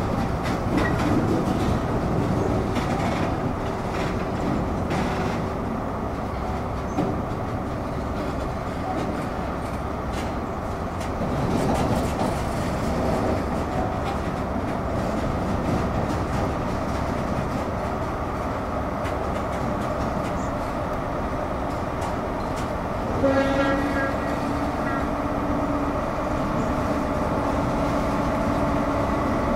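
Ex-HST Class 43 power car's diesel engine running as a train rolls slowly past, its wheels clicking over rail joints. A short, louder horn-like note sounds about two-thirds of the way through.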